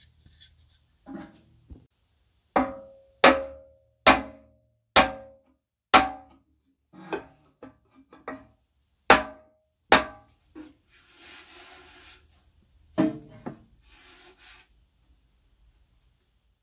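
Sharp knocks on the thin sheet-metal drum of a c. 1930 Pulvis-R powder duster, worked against a wooden block held inside it, each knock ringing briefly. The loudest come about once a second, with a brief rubbing and one more strong knock near the end.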